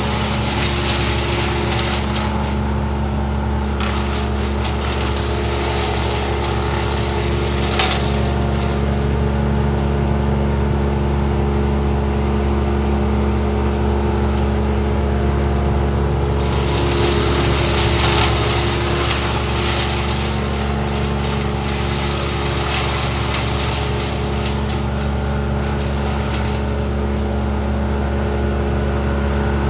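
Wood chipper running steadily with a constant engine drone, and a louder rushing noise that comes and goes, strongest in the second half, as material is fed through.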